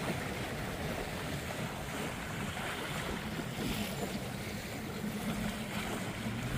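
Wind on the microphone over choppy open water, a steady rushing noise with waves splashing. A faint low motor hum comes in near the end.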